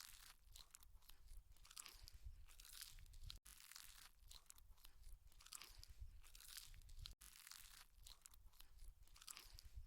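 Faint, close chewing of chicken feet in curry: wet crunching and tearing of skin and cartilage in irregular bites, broken twice by a split-second gap.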